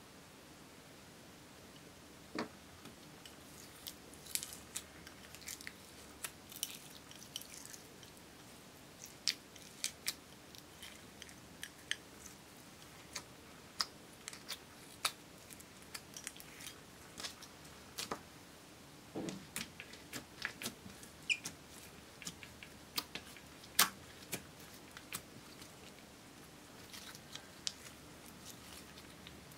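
Clear slime with glitter and sequins being mixed and squeezed by hand, giving off irregular sticky clicks and small pops, a few of them louder.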